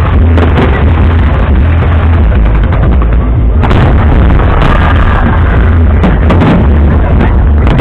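Fireworks shells bursting over a continuous heavy rumble, with sharper bangs every second or so.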